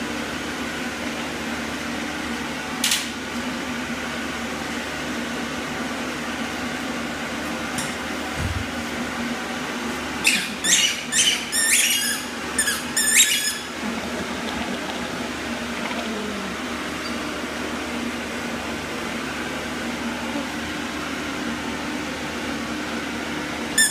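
Steady mechanical hum in a small tiled room, with a single sharp click about three seconds in and a quick run of about eight sharp squeaks and clicks a little after ten seconds in.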